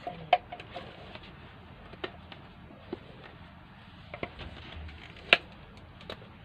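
Scissors working at a box's plastic packaging, with handling crackles: a few scattered sharp snips and clicks, the loudest about a third of a second in and again about five seconds in.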